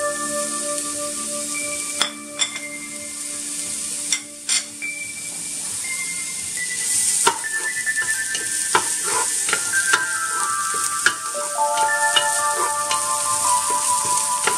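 Ginger and garlic pastes sizzling in hot oil in a non-stick pot, with a few sharp clicks of a metal spoon against a plate as the paste is scraped in, then a wooden spoon stirring and scraping the pan bottom from about halfway, the sizzle growing louder near the end. Soft instrumental background music plays under it.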